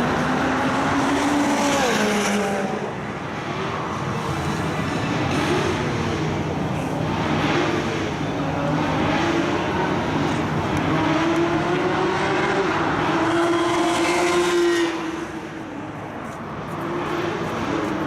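Several car engines running hard and passing, their pitches rising and falling and overlapping as they rev through the gears. The sound eases off briefly about three seconds in and again near the end before building back up.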